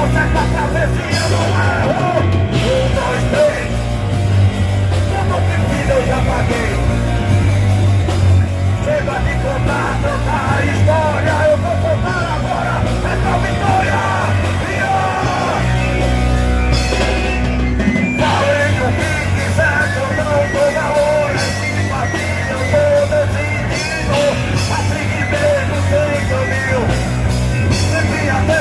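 Rock band playing live: loud, driving guitars, bass and drums with shouted, yelling vocals.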